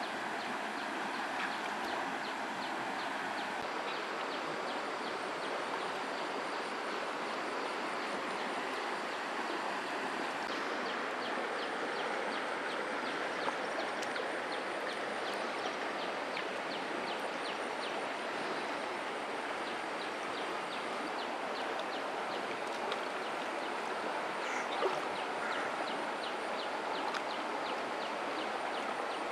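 Steady rush of a shallow river flowing over stones, with a faint regular ticking above it and a couple of small knocks.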